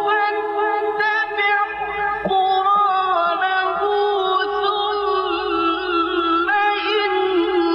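A male Quran reciter's voice chanting in a melodic, drawn-out style, holding long ornamented notes high in his range, the pitch turning and wavering with only a brief break.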